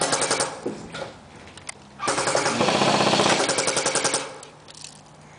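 Airsoft rifle firing on full auto: a short burst at the start, then a longer burst of about two seconds from about two seconds in, each a fast rattle of rapid shots.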